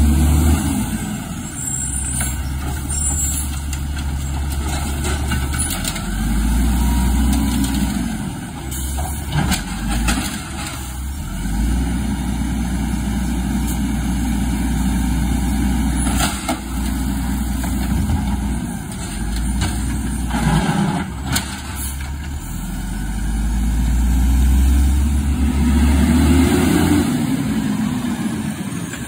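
Automated side-loader garbage truck's diesel engine running, revving up and easing back several times as it works the lifting arm and pulls along the curb. There are a few sharp clanks from the arm and carts.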